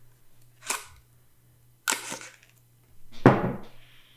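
Three short, sharp sniffs as a man smells a scented candle to judge its fragrance, the last the loudest, about three seconds in.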